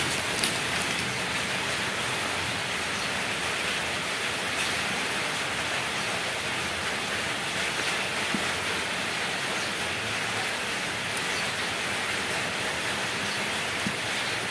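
Steady rain falling, heard as an even hiss, with a faint tick or two.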